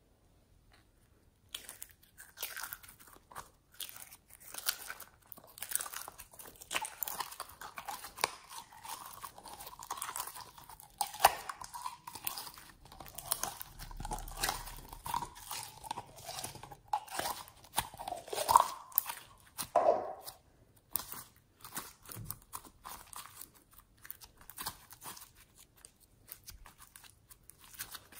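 Slime being pulled from a jar and squeezed and pressed by hand: a dense run of crackling, popping clicks and squelches that starts about a second and a half in and thins out to scattered clicks after about twenty seconds.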